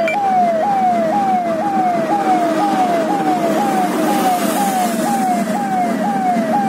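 Electronic siren tone repeating about twice a second, each cycle a quick rise and a slower fall in pitch, over the steady road and engine noise of a car driving at highway speed.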